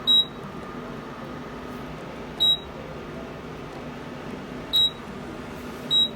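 IKEA TILLREDA portable induction hob's control panel giving four short, high beeps, unevenly spaced, over a steady hum.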